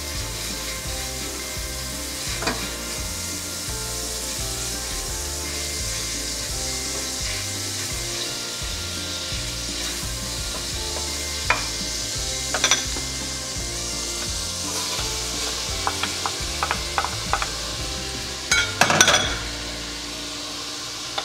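Butter sizzling in a stainless steel saucepan while diced onion and garlic are added and stirred with a wooden spoon: a steady frying hiss. A few light knocks of the spoon and bowl against the pot come in the second half.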